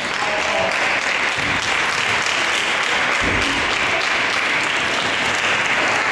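Audience applauding and clapping steadily in a gymnasium hall.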